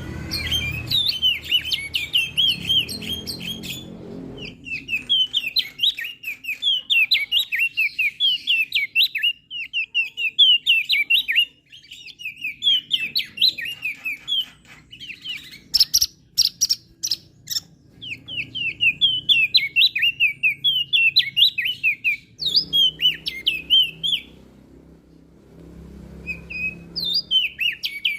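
Opior jambul singing: long, fast runs of high chirping notes in bursts separated by short breaks. A few sharp clicks come about two thirds of the way through.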